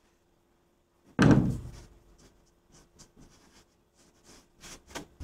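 A single sudden loud thump about a second in, fading over about half a second, followed by a few faint clicks and scrapes of handling at the fiberglass canoe hull.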